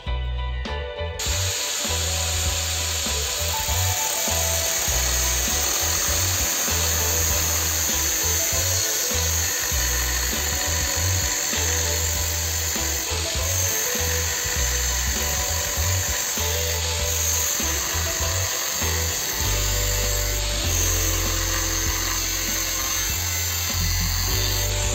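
Angle grinder with a cut-off disc cutting a flat steel bar, a steady shrill grinding that starts about a second in. Background music with a pulsing bass runs underneath.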